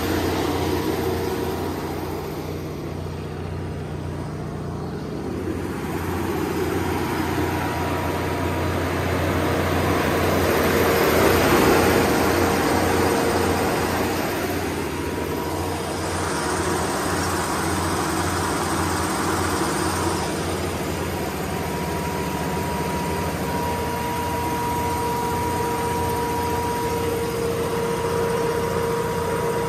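Kohler 100RZG generator set's GM 8.1L V8 gas engine running steadily at its governed speed, a constant low drone with a steady hum over it, growing louder for a moment near the middle.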